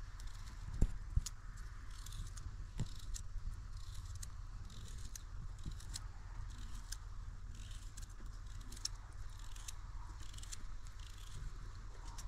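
Raw carrot being cut by hand with a knife over a bowl: an irregular string of small crisp snaps as pieces are cut off, with a few louder dull knocks in the first three seconds. A steady low rumble runs underneath.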